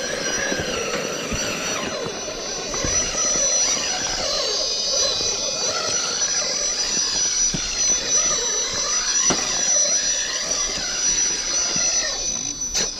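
Electric motor and drivetrain of a 1:10 scale RC rock crawler whining, the pitch wavering as it creeps over rock, with a few light knocks of tyres and chassis on stone.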